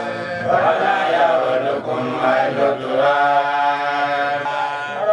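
Men's voices chanting a slow melodic chant in long held notes, with a brief break about three seconds in.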